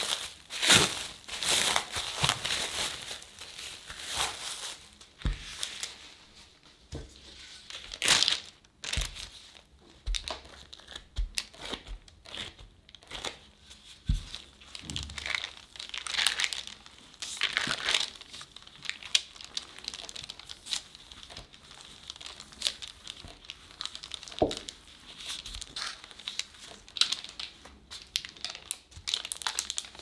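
Plastic cling wrap and thin disposable plastic gloves crinkling as the wrap is peeled off a disc of pastry dough, then rustling on and off with a few soft knocks as the dough is rolled out with a wooden rolling pin.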